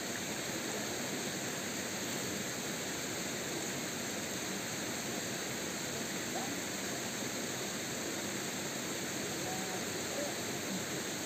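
Steady rushing of a shallow rocky stream flowing over stones.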